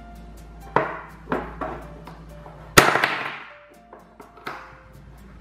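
Plastic toy bread loaf being cut apart with a toy plastic knife, with about five sharp crackling snaps as the pieces separate, the loudest about three seconds in. Faint background music runs underneath.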